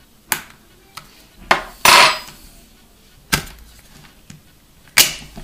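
Plastic casing of a Microsoft LifeCam VX-3000 webcam clicking and snapping as a knife blade pries it apart: about six sharp clicks, the loudest a longer crack about two seconds in.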